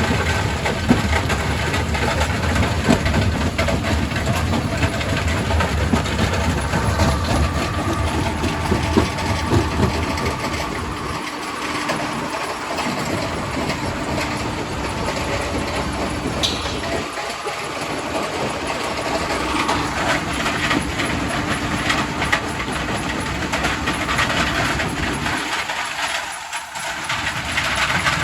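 Quarry primary rock crusher running and breaking rock: a heavy mechanical rumble full of continuous clattering and cracking of stone. The deep rumble briefly drops away three times.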